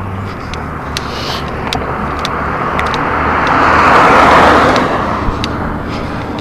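A car passing on the road, its tyre and engine noise rising to a peak about four seconds in and then fading away.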